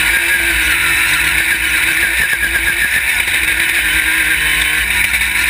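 Off-road race buggy's engine running steadily under load at racing speed, heard up close from a camera mounted on the car beside the engine, with a low rumble beneath.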